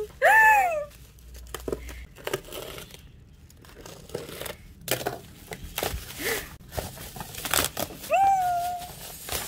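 Black plastic bubble wrap crinkling and crackling as it is slit with a cutter and torn open, then pulled off a boxed item. A short pitched vocal sound with a gliding pitch comes just after the start, and another about eight seconds in.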